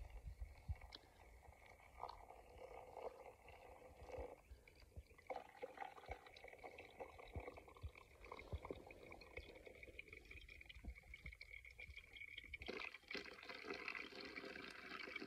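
Water poured from a metal pot onto ground coffee in a paper filter, a faint splashing trickle that gets louder about thirteen seconds in.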